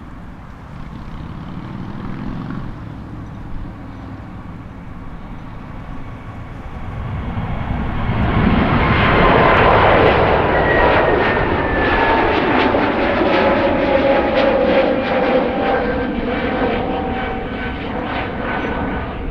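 Airbus A321 jet engines as the airliner passes: a rumble that grows loud about halfway through, with engine whine tones sliding down in pitch as it goes by.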